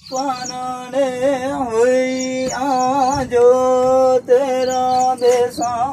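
A voice singing a melody in long held notes with quick wavering ornaments, nearly without a break, while short high bird chirps repeat in pairs above it.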